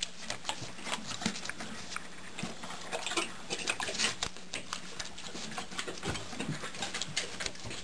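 Horse licking and lip-smacking at a wooden stall ledge, cleaning up spilled bran mash: a quick, irregular run of wet clicks and smacks.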